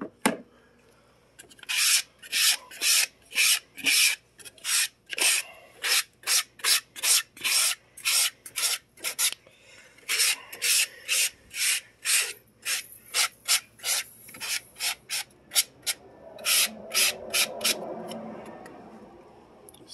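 Business card scraping across a fine stainless steel mesh sifting screen in quick repeated strokes, about two a second, gathering the sifted powder into a pile. There is a brief pause about halfway, and softer rubbing near the end.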